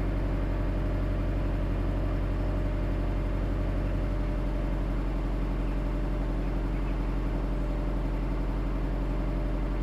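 Subaru Forester XT SG9's turbocharged 2.5-litre flat-four idling steadily through its stock exhaust after a cold start.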